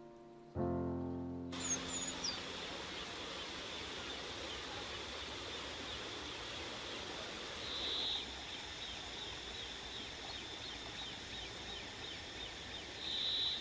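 The last held chord of background music, ending about a second and a half in. It gives way to rural outdoor ambience: a steady high-pitched whine with faint bird chirps, swelling briefly twice.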